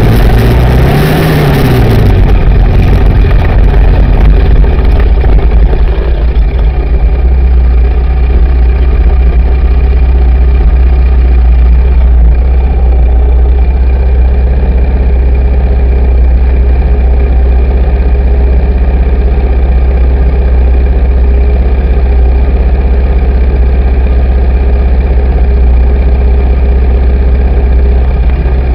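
Yamaha Raptor 700R SE quad's single-cylinder four-stroke engine, heard close from a camera mounted on the quad: a short rev that rises and falls in the first two seconds as it climbs, then a steady idle while the quad sits still on the slope.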